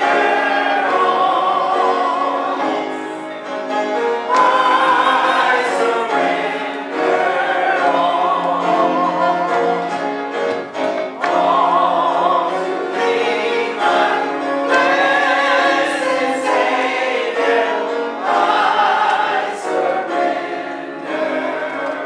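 Voices singing a gospel hymn, held notes with a wavering vibrato, in phrases that swell and break every second or two.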